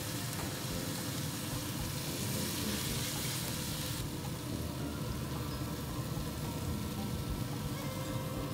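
Butter-basted flat iron steaks sizzling on the hot grate of a Yoder YS640 pellet grill, an even hiss over a steady low rumble. The high hiss softens about four seconds in.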